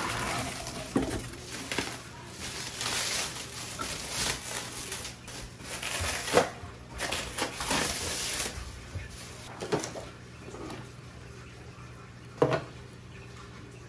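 Plastic wrap and cardboard packaging rustling and crinkling as a new acrylic aquarium sump is unpacked, with a few short knocks of parts being handled, the sharpest about twelve seconds in. The rustling is busiest in the first two-thirds and dies down toward the end.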